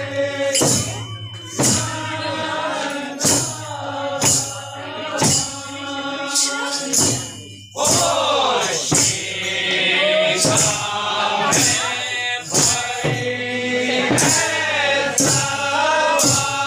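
Men singing a Kumaoni Holi song together in a group, over a steady beat of dhol drum and hand claps. The singing breaks off briefly about halfway and a new line starts loud.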